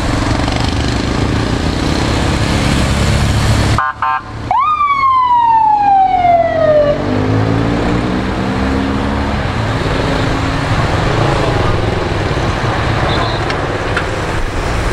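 A siren sweeping once steadily down in pitch for a couple of seconds, over a steady rumble of vehicle engines. The sound cuts out briefly just before the siren.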